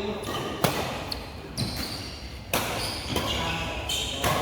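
Badminton rally: rackets strike the shuttlecock about five times, roughly one hit a second, with short high squeaks between the hits.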